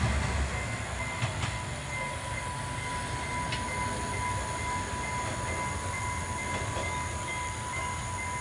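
Plasser & Theurer 08-16/C track tamping machine's diesel engine fading as it moves away along the rails, leaving a low rumble. About a second in a steady high whine starts, with a pulsing tone above it, and runs on.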